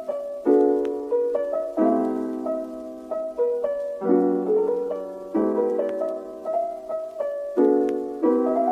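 Background piano music: a light, gentle tune with notes and chords struck about once a second, each dying away.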